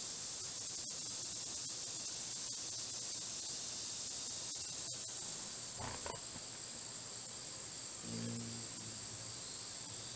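Steady high-pitched drone of an insect chorus, with a brief low hum about eight seconds in.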